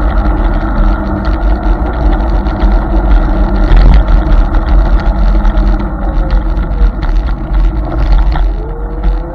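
Riding a Hiboy S2 Pro electric scooter: steady, loud wind noise on the microphone and tyre rumble on wet pavement. The hub motor's faint whine falls in pitch as the scooter slows for a turn, then rises again as it speeds back up near the end.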